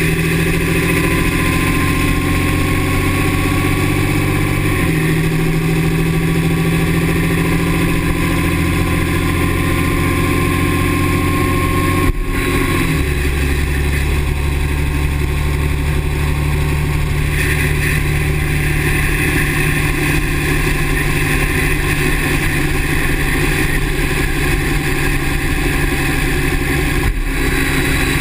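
2009 Dodge 6.7 L Cummins inline-six turbodiesel running, its engine note shifting a few times, with a faint high squeal that slowly rises in pitch over the first dozen seconds. The owner says the squeal comes only with the exhaust brake engaged and thinks it sounds like the turbo.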